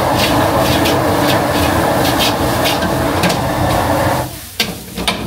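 Pre-cooked rice being stir-fried in a wok: a loud steady sizzle with the metal spatula scraping and clacking against the wok about twice a second. The noise drops suddenly about four seconds in, and a few sharp clicks follow.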